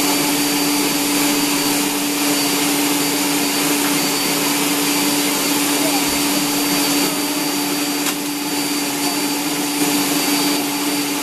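Electric stand mixer running steadily, its motor giving a constant hum and whirr as it beats biscuit dough in a stainless steel bowl.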